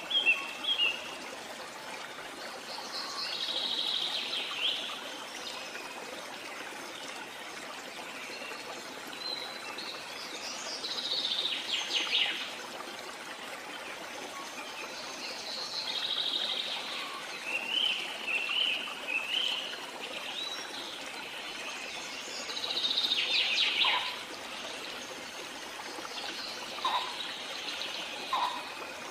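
Birds chirping and singing over the steady sound of running water, with bursts of bird calls every few seconds.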